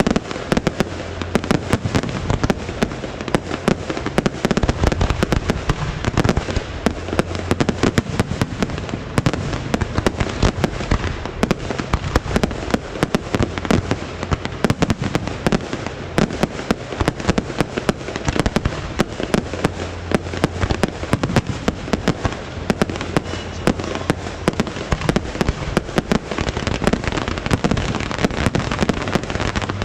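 Fireworks going off: a dense, unbroken barrage of bangs and crackles.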